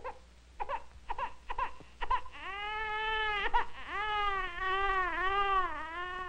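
Newborn baby crying: about five short, sharp cries, then a long wail that wavers in pitch.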